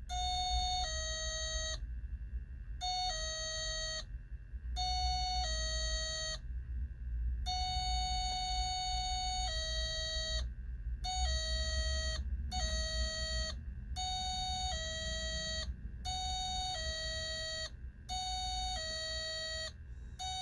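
Homemade NE555 timer doorbell kit sounding its electronic two-tone ding-dong: a higher note stepping down to a lower one, repeated about ten times at uneven intervals.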